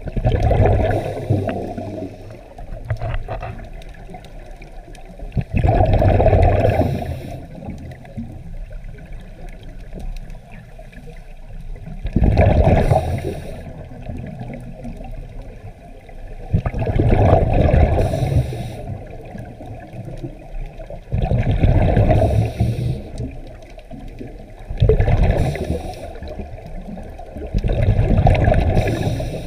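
Scuba divers' regulator breathing heard underwater: a rush of bubbling exhaled air about every four seconds, seven times, with a quieter underwater wash between breaths.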